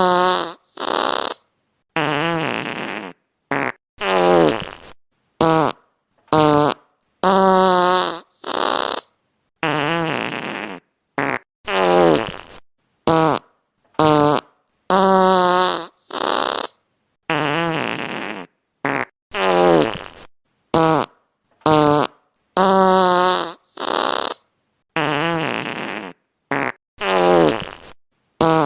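A string of fart sound effects, one after another with brief silent gaps: some long and buzzy with a wavering pitch, some sliding down in pitch, others short puffs.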